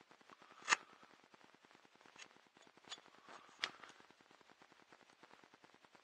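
Carving knife slicing small shavings from a wooden paddle to pare off saw marks: a few short, sharp snicks, the loudest about a second in, with faint scraping between cuts.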